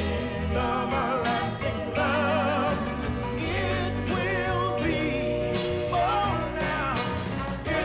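Background music: a slow love song with a voice singing over band accompaniment and a steady bass line.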